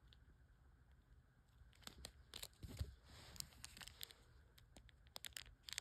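Clear plastic zip-top bag crinkling and crackling as fingers handle it, in a run of irregular sharp crackles starting about two seconds in.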